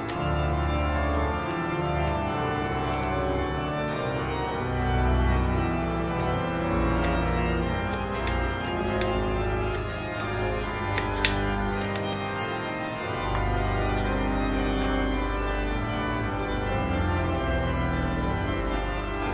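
Background music of sustained, held organ-like chords, with two faint clicks about eleven seconds in.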